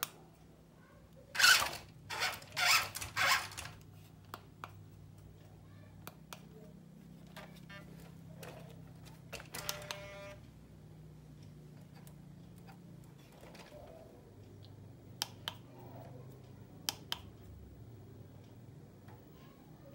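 Handling noise from an RC truck and its transmitter: a cluster of knocks and rustles about a second in, then scattered small clicks over a faint low hum, with a brief pitched tone around ten seconds in.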